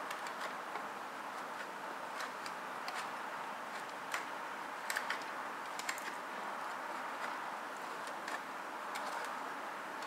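Scattered light clicks and faint scraping as Parmesan is grated by hand with a small metal grater, over a steady low hiss.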